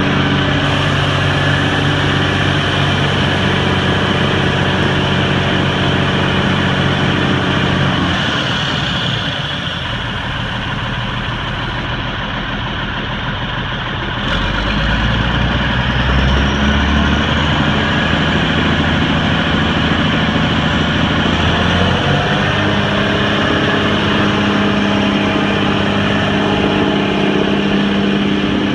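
1997 Peterbilt concrete mixer truck's diesel engine running while the hydraulically driven drum turns and is switched from one direction to the other. The engine note drops about 8 seconds in and comes back stronger with a deep rumble about 14 seconds in, shifting again a little past 20 seconds.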